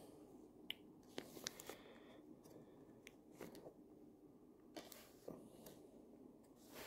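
Faint, scattered clicks and light rubbing of trading cards being handled and slid across a stack of cards.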